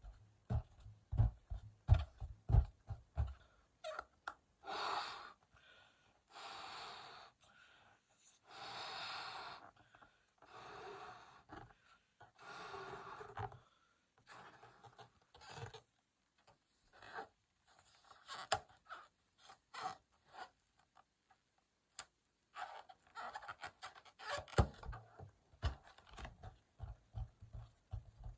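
Latex balloon being blown up by mouth: about five long breaths, a second or so each, puffed into it in a row. Before and after them come short rubbery squeaks and creaks of the balloon being handled.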